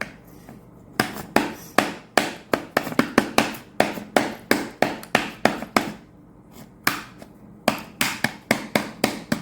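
A small digging tool striking and chipping at the hardened clay block of a fossil dig kit: a fast run of sharp taps, about three or four a second, that stops for about a second near the middle and then starts again.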